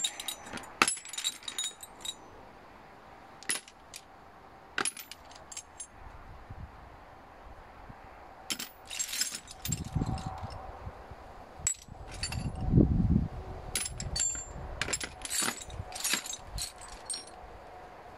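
Steel sockets clinking and rattling against one another as a hand rummages through a plastic crate of them. There are many short clinks, and two brief low rumbles come in the second half.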